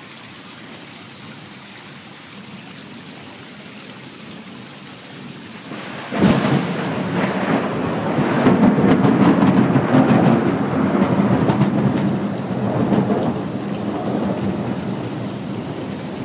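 Steady rain, then about six seconds in a sharp thunderclap that swells into a long rolling rumble of thunder, loudest a few seconds later and slowly dying away.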